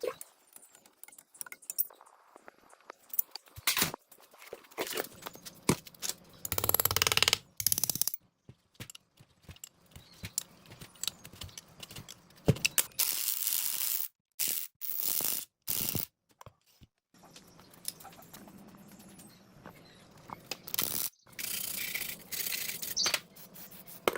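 Hand tools working on metal generator parts: separate clicks, clanks and ratchet-like ticking mixed with stretches of scraping, in short segments that start and stop abruptly.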